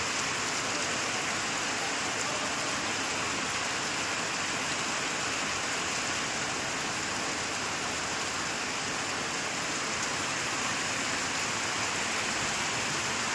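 Heavy rain falling steadily on wet ground, an even, unbroken hiss with no let-up.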